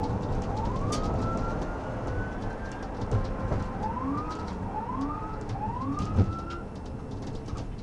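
Police car siren sweeping up in pitch again and again, first in one long slow rise and then in shorter, quicker rises, over steady road noise. There is a knock about three seconds in and a sharper thump a little after six seconds.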